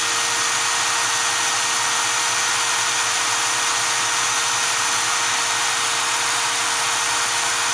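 Milwaukee M18 Fuel Gen 3 hammer drill's brushless motor running steadily with no load, a steady whine over a hiss. The drill is overheating with nothing to drive, which the owner takes for a defect.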